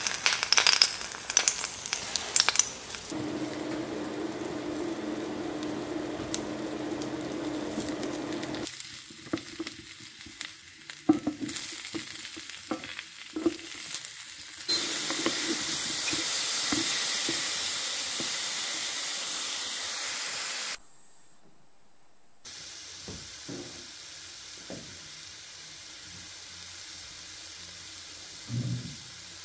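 Garlic and then mushrooms frying in olive oil in a cast iron pan: a steady sizzle, with short knocks and scrapes of a wooden spoon stirring the mushrooms. The sizzle comes in several stretches broken by cuts, and it nearly drops out for a second or so about two-thirds of the way in.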